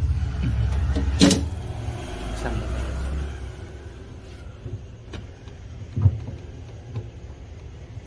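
A low, steady mechanical hum that fades out about three and a half seconds in, with a sharp click a little over a second in and a few lighter knocks later, from the thin copper tubing being handled.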